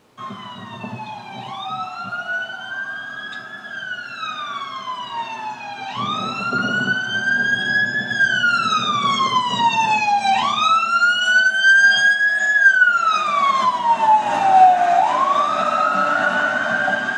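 Fire engine's siren in a wail, sweeping up in pitch and gliding back down in long cycles of about four to five seconds, getting louder as the truck approaches. The truck's engine and tyre noise run underneath.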